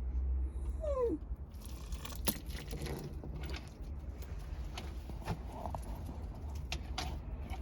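A Shiba Inu gives a short whine that falls in pitch about a second in. Scattered clicks and taps follow over a steady low rumble.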